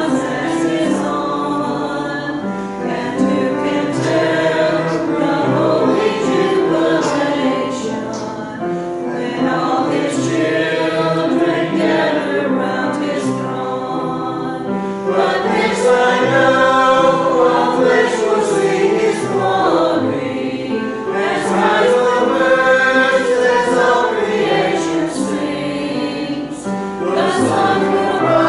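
Small mixed church choir of men and women singing together, led by a conductor.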